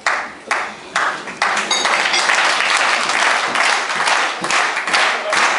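Audience applause swelling into steady clapping, after a few sharp single claps or strokes about two a second.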